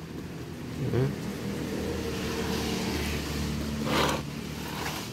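A vehicle engine running steadily, its pitch dipping and rising about a second in. A short burst of noise comes near the end.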